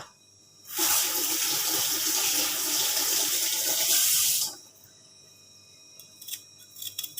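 Water running from a kitchen tap for about four seconds, then cut off, followed by a few faint clicks near the end.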